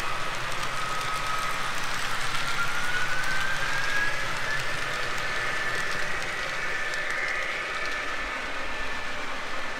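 MTH ES44AC O scale model diesel locomotive pulling its cars, wheels rolling on the track with a steady rush. A thin whine climbs in pitch about two seconds in, then holds steady.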